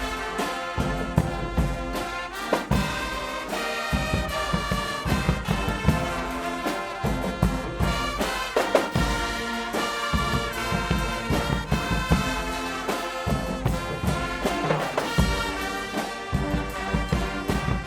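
A Guggenmusik band playing: brass (trumpets and trombones) blaring a tune together over drums beating a steady rhythm.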